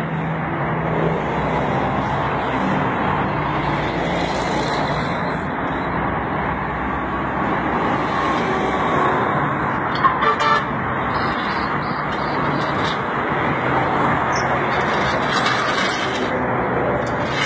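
Steady road-traffic noise, with a short clatter about ten seconds in.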